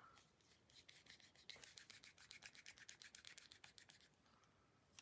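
Faint, rapid scrubbing strokes, about six a second, as a folding knife's part is scrubbed clean.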